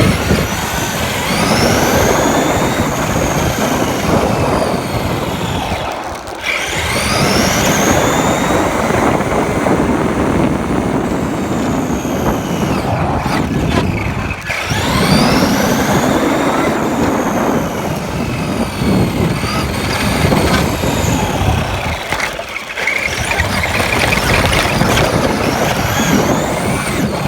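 Traxxas RC car driving, heard from a phone mounted on the car: the motor's high whine rises and falls with the throttle over a loud, rough rumble of tyres and chassis. It eases off briefly three times.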